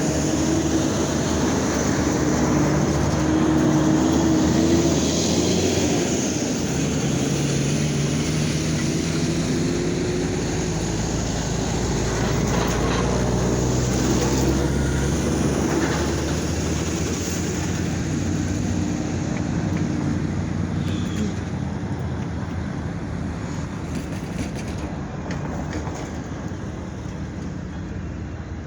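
Diesel-electric locomotive engines running, their pitch drifting up and down as they work, with a few brief knocks around the middle; the sound gradually fades toward the end.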